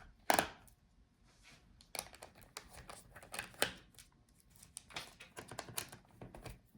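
Light, scattered clicks and taps of a laptop's internal battery being handled and lifted out of the chassis, with a sharper knock just after the start.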